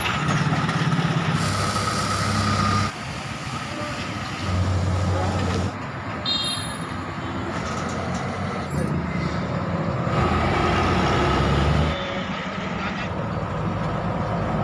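Large coach buses' engines running as the buses pull away one after another, heard in several short clips that cut abruptly into each other every few seconds.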